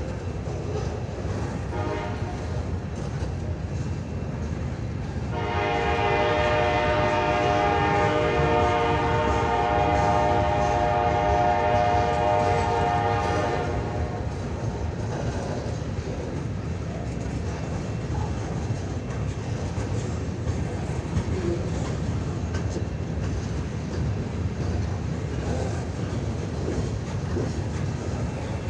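CN freight locomotive air horn: a faint short note about two seconds in, then one long chord blast of about eight seconds. Under it, the train rolls by on the rails with a steady low rumble and clatter.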